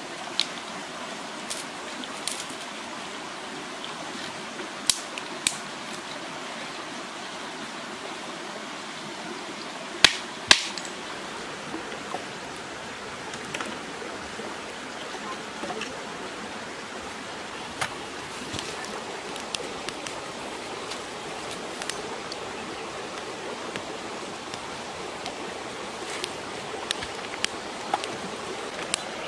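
Shallow rocky stream running steadily, with scattered sharp clicks and knocks on top, the loudest two close together about ten seconds in.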